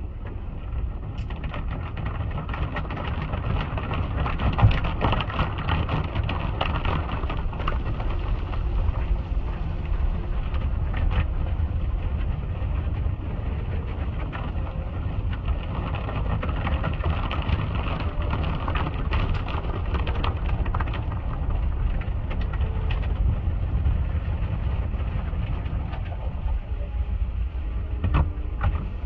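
Automatic car wash heard from inside the car: rotating cloth brushes scrubbing and slapping over the windshield and body while water sprays the glass, over a steady low rumble.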